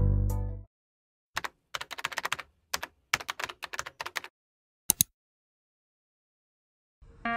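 Computer keyboard typing sound effect: a run of quick key clicks for about three seconds, then one more double click about five seconds in. Background music fades out at the start and comes back in near the end.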